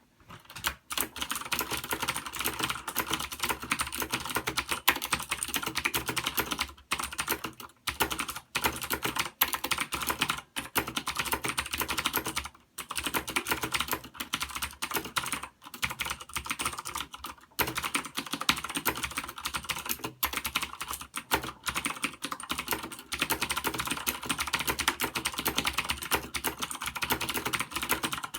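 Fast continuous typing on a Das Keyboard Ultimate mechanical keyboard with Cherry MX Blue clicky switches, a dense run of sharp key clicks broken by a few brief pauses.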